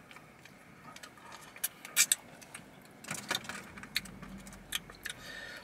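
Faint, scattered small clicks and rustles of a man eating a Cajun fry and handling the takeout food container, with brief pauses between them.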